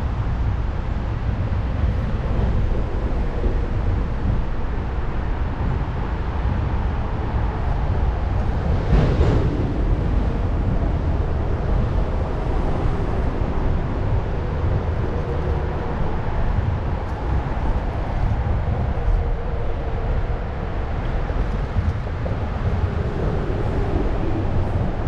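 Steady rushing noise of flowing creek water with a low rumble, and one short louder sound about nine seconds in.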